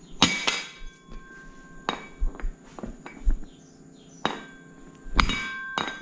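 A heavy hammer strikes the hydraulic fan pump of a Toyota 1UZ-FE V8 about six times at uneven intervals, each blow leaving a short metallic ring. The blows are meant to shock the part loose from the taper it sits on.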